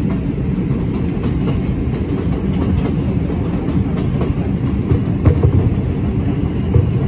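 Steady low rumble of an R142 subway car's wheels on the rails, heard from inside the car at speed on elevated track, with scattered clicks as it runs over the rail joints; the rumble swells a little about five seconds in.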